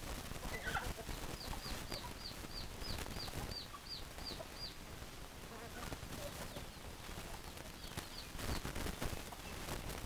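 Free-range chickens foraging with low clucking. A chick peeps about a dozen times in a quick run of roughly three high peeps a second, from about a second in to about five seconds in, and gives a few more peeps near the end.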